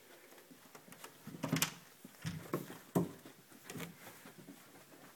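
A border collie pushing through a door and scrambling across the floor: a run of irregular thuds, knocks and clicks, loudest in the middle.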